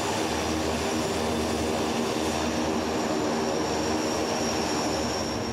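Turboprop aircraft engines running, a steady drone with a thin high turbine whine over it.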